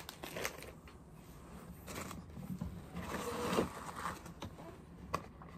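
Soft rustling and light handling clicks as newborn diapers are handled, with a brief faint pitched sound about three and a half seconds in.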